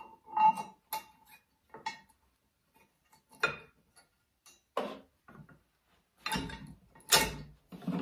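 Steel bolts and washers clinking against each other and the tabletop as they are picked up and a bolt is fitted through steel linkages. There is a string of short, ringing metallic clinks, with a few heavier knocks near the end.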